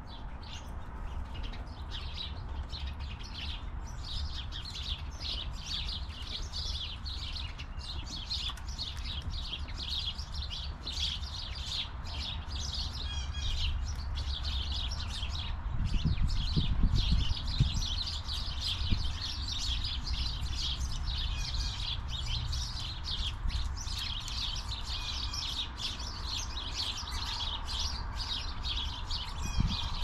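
Small songbirds chirping steadily, many short chirps overlapping in a continuous chatter, over a low steady rumble, with a few louder low thumps about halfway through.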